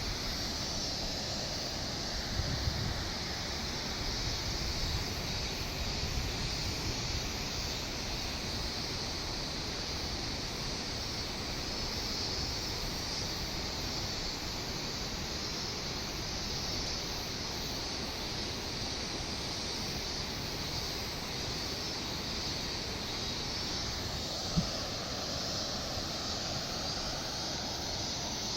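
Steady outdoor background noise: a constant, even rush with a high hissing band, and a single sharp click about 25 seconds in.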